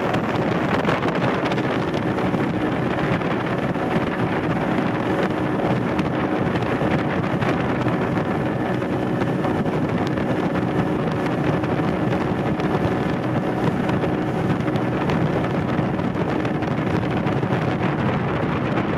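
Motorboat underway: a steady engine drone beneath the constant rush of wind buffeting the microphone.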